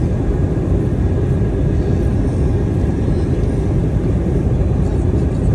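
Steady low rumble of engine and airflow noise inside the passenger cabin of an Airbus A321 in flight, with a faint steady whine above it.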